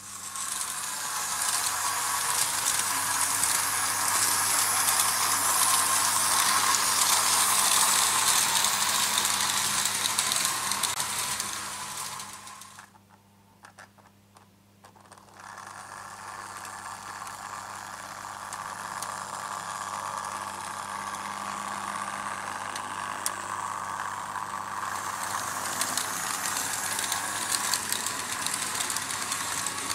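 Märklin H0 model trains running on pressed-steel M-track: a steady metallic rolling clatter of the wheels over the rails, with a steady low electrical hum underneath. The clatter fades out for a few seconds near the middle and then builds up again.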